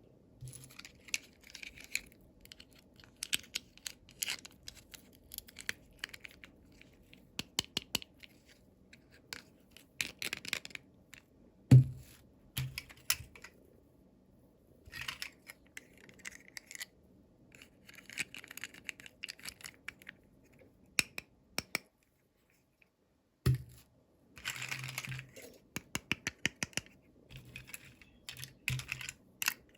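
Toy packaging being unboxed by hand: rustling and tearing of wrapping, with many short clicks and taps. Two louder thumps come about twelve seconds in and again about twenty-three seconds in.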